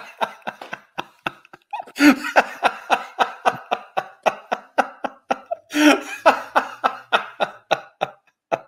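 Two men laughing hard together in quick repeated bursts for several seconds, with a short break about a second and a half in.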